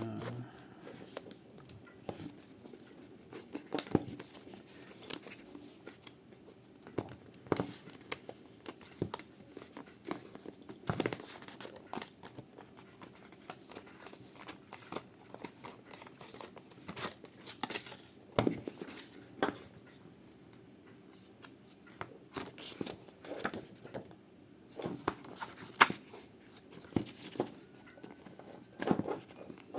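Smartphone box being unboxed by hand: tearing of the seal strips and crinkling, rustling packaging, with irregular clicks and light knocks as the box and its inner parts are handled.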